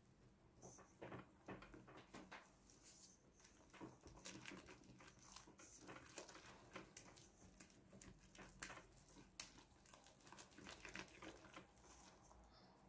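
Faint, irregular scraping and clicking of a spatula stirring flour into a wet yeast mixture in a stainless steel bowl, as the focaccia dough comes together.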